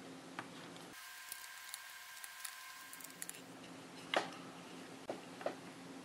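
Faint, scattered clicks and taps of hard plastic parts being handled while a small motor is fitted into its plastic housing. The loudest click comes about four seconds in, and a smaller one about a second later.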